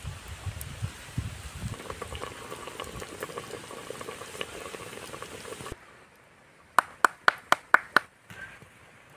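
Pork curry bubbling in a clay pot over a wood fire, with the fire crackling. After a cut come six quick, sharp hand claps, about four a second: palms slapped together to shake off the dust while preparing chewing tobacco.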